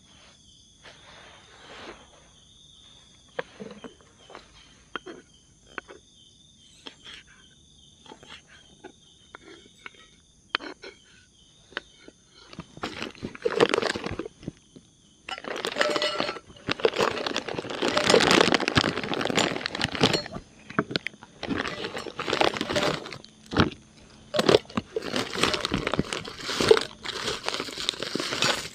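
Rummaging in a fabric tote bag: rustling and crinkling of the bag and plastic food packets, loud from about halfway on, with small knocks as bottles and packs are set down on a camp table. Crickets chirp faintly in the quieter first half.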